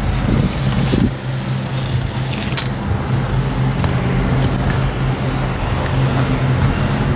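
Piaggio Porter NP6's four-cylinder petrol/LPG engine idling steadily and quietly, with a few faint clicks over it.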